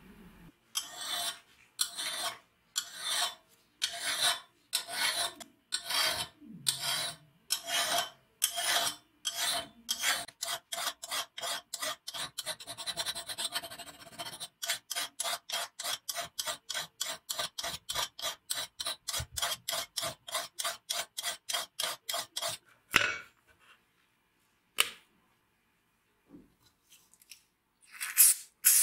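Flat hand file scraping back and forth along a rusty steel sword blade clamped in a vise, slow strokes about one a second, then quicker at two to three a second, stopping a few seconds before the end. A few brief loud strokes follow near the end.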